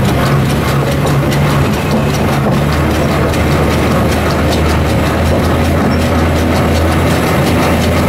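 Diesel engine of the Botchan Ressha replica steam locomotive running as it travels along street-tram track, heard from right beside the driver. Its steady hum drops to a lower note a little under three seconds in, with faint ticking over it.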